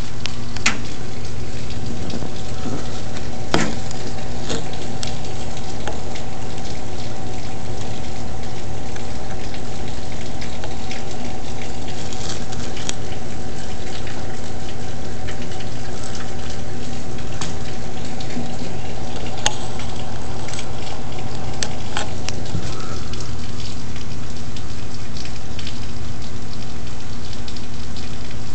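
Steady rain pattering on a roof, a constant hiss with scattered sharper drop ticks.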